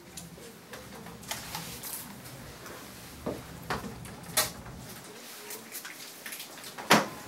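A few light clicks and knocks from handling at the grooming table, the sharpest one about seven seconds in.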